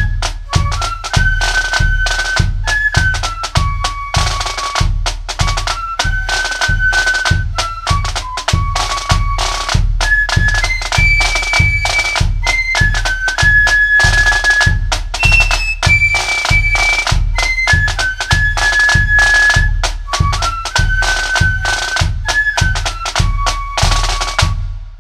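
Loyalist marching flute band playing a march: flutes carry the tune over a steady bass drum beat about twice a second and rattling snare drums. The music stops abruptly near the end.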